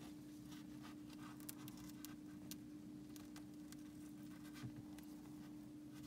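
Faint handling noise from fingers shifting their grip on a polished rutilated quartz sphere: scattered small clicks and rubs over a steady hum.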